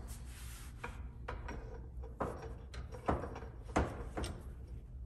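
Cast-iron bench vise being cranked slowly to press U-joint bearing caps into a driveshaft yoke: its sliding steel handle clanks against the screw ends, about six sharp knocks over a low steady hum.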